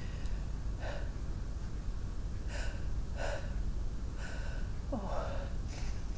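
A person's sharp, gasping in-breaths, about six of them, the build-up to a sneeze. The one about five seconds in carries a falling voiced 'ah'.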